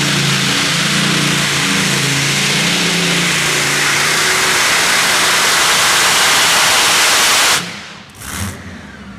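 Competition pulling tractor's engine running at full power during a pull: a loud, even roar with a low engine note that fades after about four seconds. The sound drops away abruptly about seven and a half seconds in.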